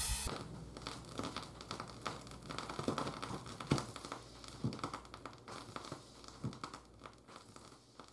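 Vinyl record surface noise from a turntable stylus in a Shure cartridge tracking a spinning record: scattered clicks, pops and crackle over a low hum, fading out.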